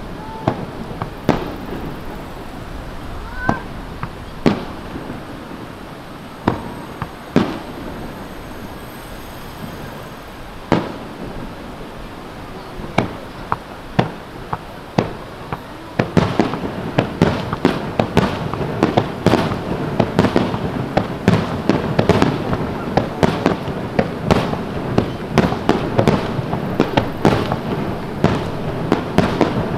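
Fireworks display: aerial shells bursting in sharp bangs, a few seconds apart at first, then coming thick and fast, many a second, from about halfway through.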